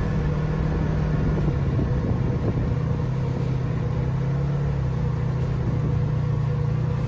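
Vehicle engines running steadily at low revs, a constant low hum, as the vehicles crawl slowly over soft sand during a tow.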